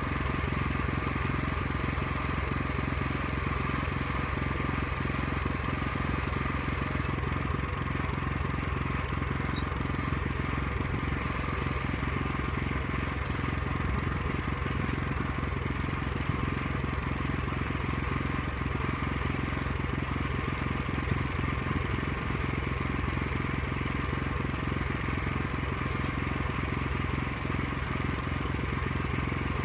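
Small engine of a walk-behind power tiller running steadily at idle, an even low drone.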